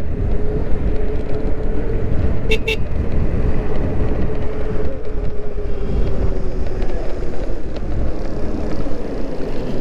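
Electric moped's hub motor whining steadily while riding, its pitch sagging slightly as it slows, over wind rumble on the microphone. Two short high beeps sound about two and a half seconds in.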